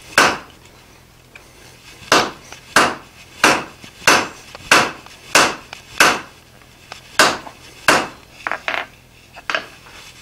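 Hand hammer striking a red-hot steel sucker rod coupling on an anvil, drawing its flange out square: about a dozen sharp blows at roughly one and a half a second. They begin after a pause of nearly two seconds, with a few lighter quick taps near the end.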